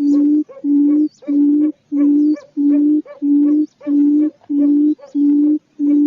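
Quail calling in a long, very regular series of low, steady hoots, about three every two seconds, with faint short high chirps now and then.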